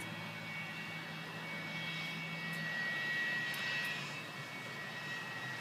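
Large jet airliner passing, its engine noise swelling to a peak about three seconds in, with a high steady whine over a broad rush.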